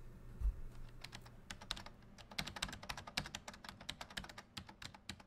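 Computer keyboard typing: quick, irregular key clicks, several a second, starting about a second in, after a soft low thump.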